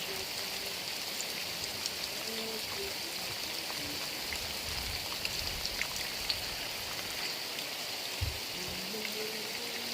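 Heavy rain falling steadily as an even hiss, with scattered sharp drop ticks. A faint low pitched sound, much like a distant voice, comes in briefly early on and again near the end.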